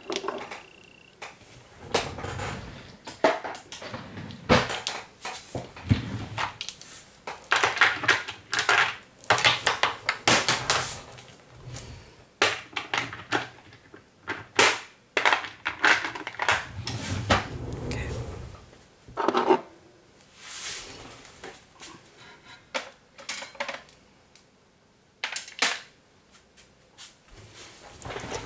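Nail polish bottles being picked through and set down: irregular clinks, knocks and short rattles of small bottles against each other and a hard surface, with a quieter pause partway through.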